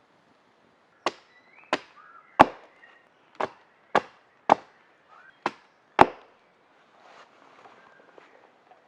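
Wood being chopped with a blade: eight sharp blows over about five seconds, the loudest near the start and the last. Then faint rustling and crackling of branches.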